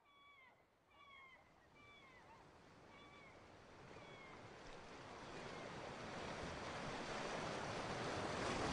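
Seagulls giving short calls that slide down in pitch, about one a second, dying away over the first few seconds, while the wash of surf fades in and grows steadily louder.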